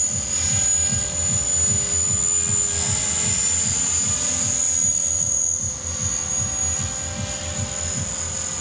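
Radio-controlled model helicopter flying overhead: a steady high-pitched whine, with a rapid low pulsing underneath.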